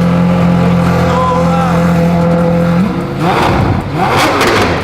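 Lamborghini Aventador SV's 6.5-litre V12 running through a catless, straight-through valvetronic Fi exhaust: a steady, loud idle note, then revved about three seconds in, the pitch climbing and falling with harsh crackling.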